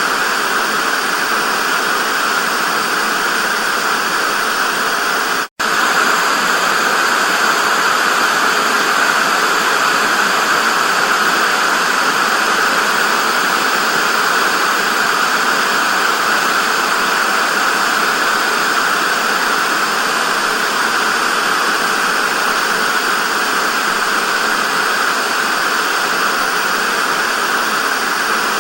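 Television static: a steady, loud hiss of white noise, brightest in the upper middle, with a split-second dropout about five and a half seconds in.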